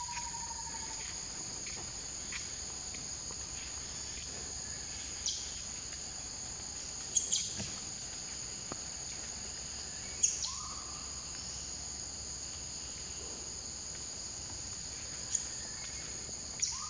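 Steady high-pitched drone of forest insects, with about five short, sharp chirps or clicks standing out over it.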